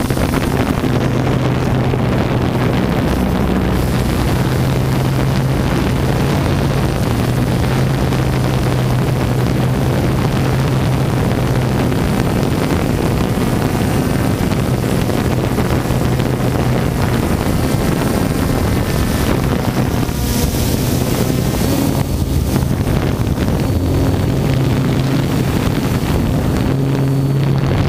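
Multirotor drone's electric motors and propellers humming steadily, with wind buffeting the onboard microphone.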